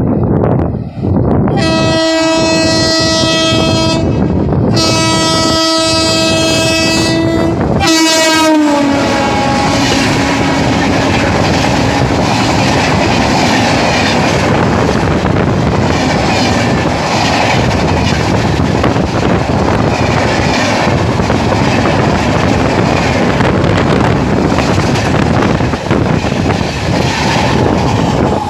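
WAP7i electric locomotive sounding two long horn blasts as it approaches, the horn's pitch dropping as it passes at about 127 km/h. Then the LHB coaches rush past with a steady rumble and clickety-clack of wheels over the rail joints.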